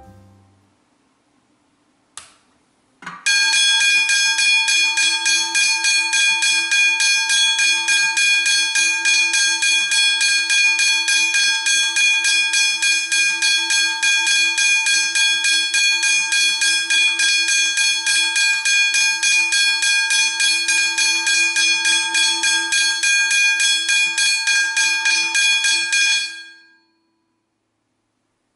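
First-generation Westinghouse hybrid level crossing bell ringing: a rapid, even string of strikes on its gong that starts just after three seconds and stops a couple of seconds before the end with a short fade. A sharp click comes about two seconds in, just before the ringing starts.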